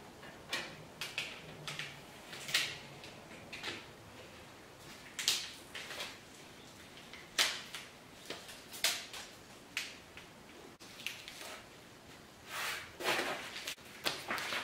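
Hand-handling sounds on a motorcycle fuel tank while a knee pad is fitted: a scatter of short rustles, scrapes and clicks, then a longer rubbing sound near the end as a cloth is wiped over the tank.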